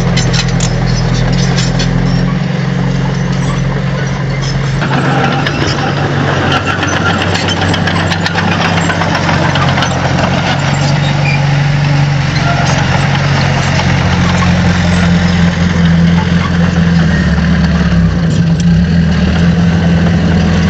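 Heavy construction machine's diesel engine running steadily under load, with rapid clicking at the start and again near the end.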